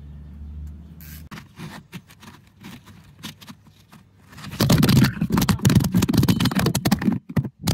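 Recording-device handling noise: scattered light clicks, then from a little past halfway a loud, dense scraping and rubbing as the phone is handled against its microphone.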